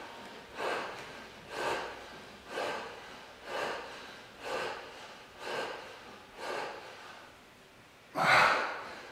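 A man breathing hard through push-ups, one forceful exhale per repetition at about one a second, seven in a row. Near the end comes a louder, longer breath.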